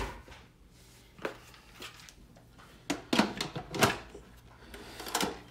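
Knocks and clunks of plastic and metal as a Ninja Foodi pressure cooker's pressure lid is fetched from a lower cabinet, set on the pot and twisted to lock, about six separate knocks with the loudest three to four seconds in.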